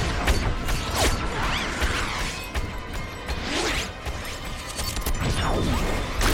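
Slow-motion gunfire sound effects: drawn-out pistol shots and bullets whooshing past in several swooping glides, over a deep rumble and a dense scatter of sharp clicks and ticks.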